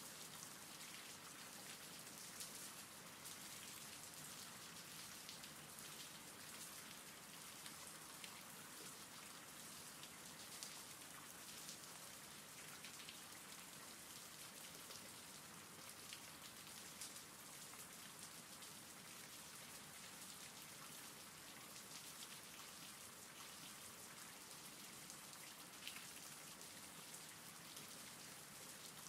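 Faint, steady rain: an even hiss of falling rain with scattered sharp drop taps.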